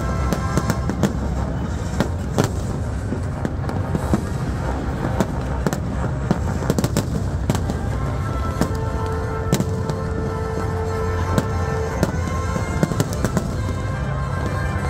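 Aerial fireworks shells bursting overhead in a rapid, irregular string of bangs and crackles over a continuous low rumble, with orchestral music playing underneath.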